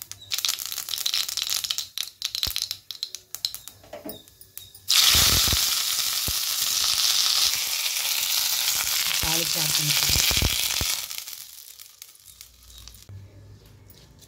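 Mustard seeds crackling and popping in hot oil, then about five seconds in a sudden loud sizzle of the hot tempering that lasts about six seconds and dies away.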